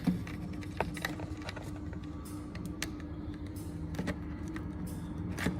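Light clicks and handling of a small plastic geyser-controller display as its lead is plugged back in and it is fitted, over a steady low hum.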